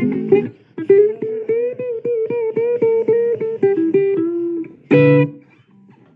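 Blues guitar finishing a song: a strummed chord, a quick run of single picked notes, then one short closing chord about five seconds in, after which the sound dies away.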